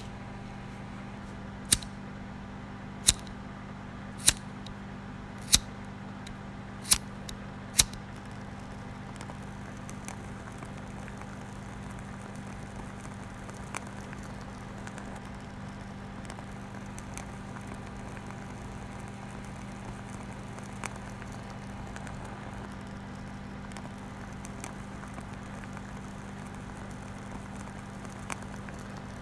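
A steady low electrical-sounding hum, with sharp single clicks about every second and a half during the first eight seconds; after that the hum goes on with only a few faint clicks.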